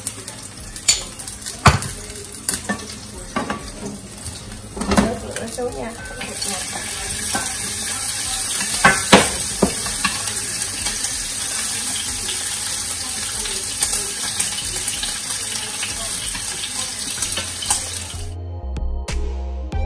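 A few clinks of a utensil against a nonstick frying pan, then, about six seconds in, shrimp frying in hot oil, sizzling steadily with occasional taps of the utensil. The sizzle cuts off suddenly near the end and music comes in.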